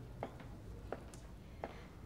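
Quiet room tone: a low steady hum with a handful of faint, short clicks.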